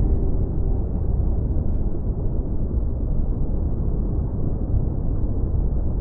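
Steady, deep, muffled rumble of ocean water heard underwater, an even wash with no distinct bubbles or splashes.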